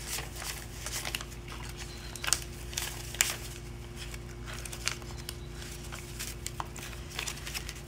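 Paper dollar bills being handled and counted by hand: short, crisp rustles and flicks of the notes every second or so, over a faint steady hum.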